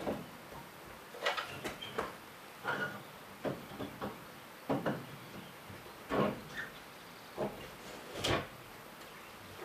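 Irregular knocks and clunks, about a dozen, as a glass-door stove insert and its metal door are handled and fitted into a masonry fireplace; the loudest come about six and eight seconds in.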